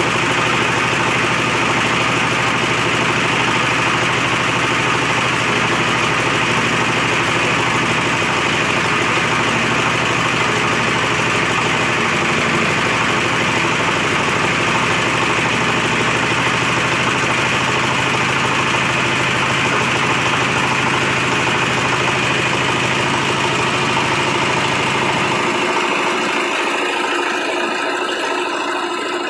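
Livestock feed pellet machine running steadily under its engine drive, a dense mechanical clatter and hum. Near the end the low hum drops out and the noise eases a little.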